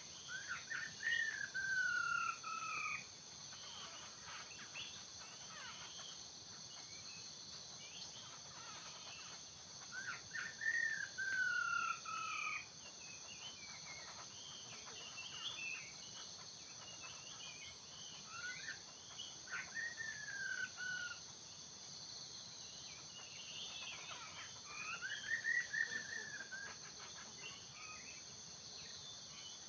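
Laughingthrush calling: four loud whistled phrases that slide downward, spaced several seconds apart, with shorter chattering notes between them. A steady high-pitched insect drone runs underneath.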